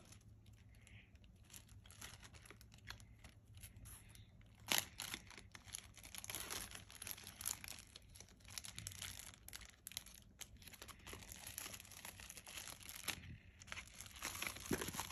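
Small plastic gift bag being crinkled and pulled open by hand: faint, irregular crackling with one sharp crack about a third of the way in, and denser crinkling later on.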